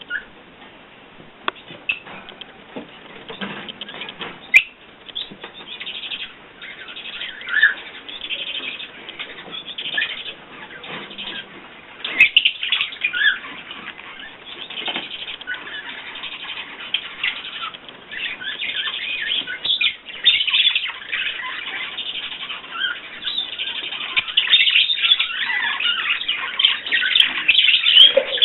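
Small pet birds chirping and fluttering their wings, with short chirps and clicks that grow busier over the second half.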